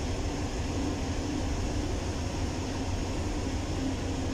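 Steady drone of a ship's engine-room machinery and ventilation, heard from inside the engine control room: a low hum with a faint steady tone above it, unchanging throughout.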